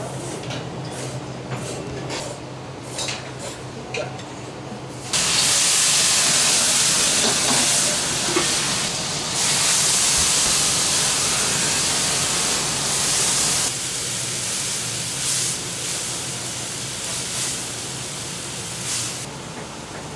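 Loud sizzling from a hot wok on a gas range, starting suddenly about five seconds in and easing after several seconds into a quieter, steady hiss. Before it, a few light clicks.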